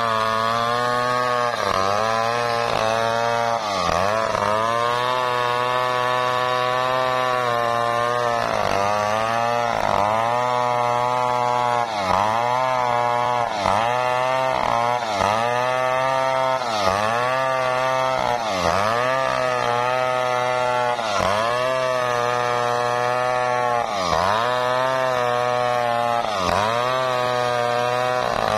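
Two-stroke Stihl chainsaw running at full throttle while ripping a dry waru log lengthwise with a blunt chain. The engine pitch repeatedly sags and recovers every second or two as the dull chain bogs in the hard dry wood.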